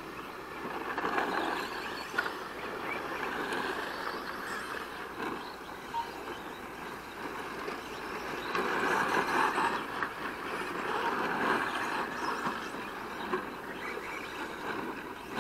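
Radio-controlled cars running on a dirt track, their sound rising and falling as they pass, loudest about a second in and again around the middle.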